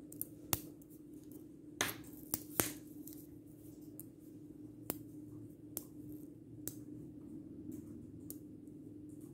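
Small Buckyball-style magnetic balls clicking sharply as they snap onto one another, about eight irregular clicks, over a faint steady hum.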